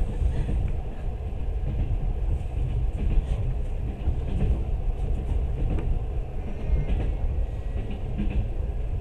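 Passenger train running along the line, heard from inside the carriage: a steady low rumble of wheels on the rails with scattered faint clicks.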